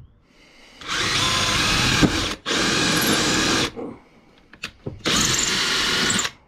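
Cordless drill boring through a round wooden handle, running in three bursts of about a second each. The first two come almost back to back, and the third follows after a short pause.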